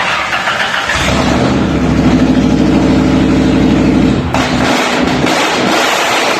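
Ford Ranger four-cylinder engine through a true dual exhaust with 28-inch mufflers on each side, running loud. It is held at higher revs from about a second in, then drops back about four seconds in.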